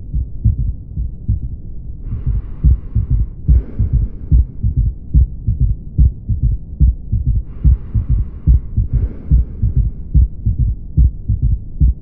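Recorded heart sounds through a stethoscope with an S3 gallop: each beat a lub (S1) and dub (S2), followed closely by a soft third sound in early diastole, the 'Ken-tuc-ky' rhythm of passive ventricular filling. A faint hiss comes and goes over the thuds, about a second at a time.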